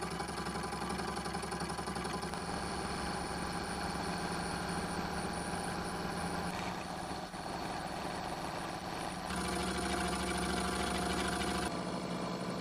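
Milling machine running with an end mill facing a square bar: a steady machine hum with cutting noise that shifts abruptly a few times.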